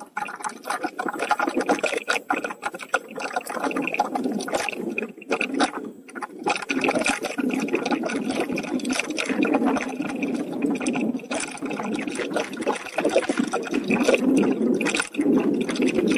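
Bicycle rolling along a dirt and gravel trail: continuous tyre crunch mixed with many small clicks and rattles from the bike.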